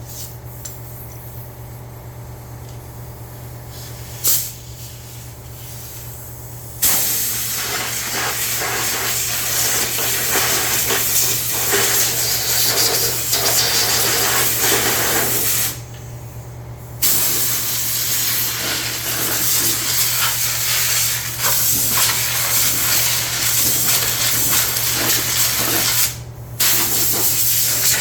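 Compressed air hissing from an air blow gun in long blasts starting about seven seconds in, with two short breaks. A steady low hum runs underneath throughout.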